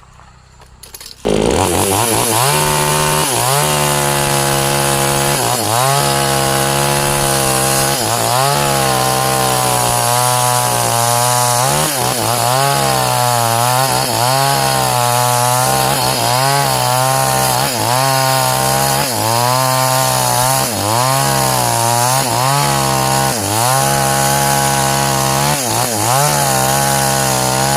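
Chainsaw cutting a waru (sea hibiscus) trunk. It comes in loud about a second in and runs at high revs, its pitch repeatedly dipping and recovering as the chain bogs in the wood.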